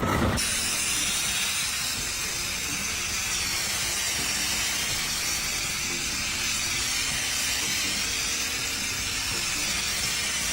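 A steady hiss that starts abruptly and holds level.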